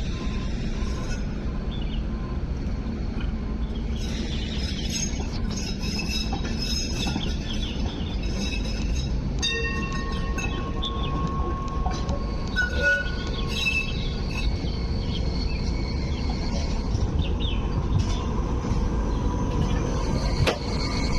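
Hong Kong Light Rail vehicle rolling slowly across the depot's curved pointwork and passing close by. Its wheels click over the rail joints and points, then squeal in thin high tones on the tight curves for a few seconds in the middle, under a steady rumble that grows as the car draws near.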